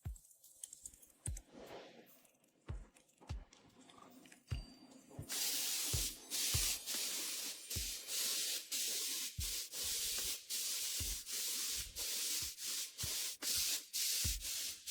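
Spraying hiss that starts about five seconds in and runs steadily with brief dips, after a few seconds of quieter rubbing and handling sounds; background music with a steady beat underneath.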